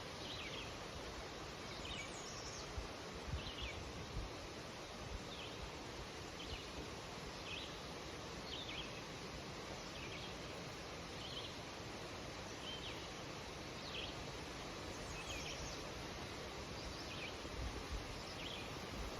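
Wind rustling birch leaves in a steady hiss, with a bird giving short high chirps about once a second.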